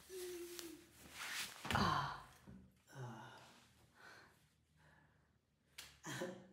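A man sighing and groaning wordlessly, with one loud breathy sigh that falls in pitch about two seconds in, then softer sighs.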